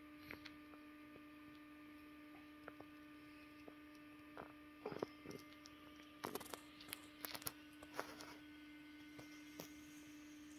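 Near silence with a steady low electrical hum, broken about halfway through by a few seconds of soft clicks and rustles.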